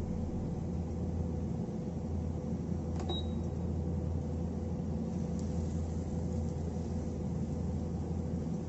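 A steady low machine hum, with one sharp click about three seconds in.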